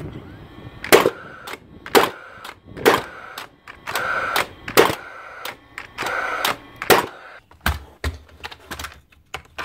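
Paslode IM350/90 cordless gas framing nailer fired over and over, about seven sharp cracks roughly a second apart, with the gun's fan whirring between several of them. The gun is still not working right, which the owner puts down to it not getting enough gas, typical of a slightly leaking red stem adapter on the gas can.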